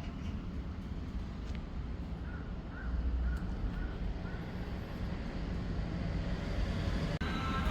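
Steady low rumble of a car on the move, with a quick run of five short calls a little over two seconds in.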